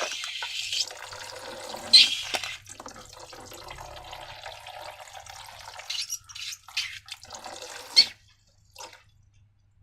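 Thick liquid pouring and dripping into a container while slime is made, with a sharp click about two seconds in and another near the end. After that it falls almost silent.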